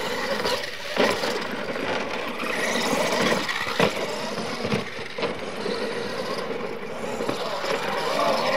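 Radio-controlled monster trucks racing over a dirt track: motors running and tyres churning the dirt, with a few sharp knocks as the trucks hit ramps and land.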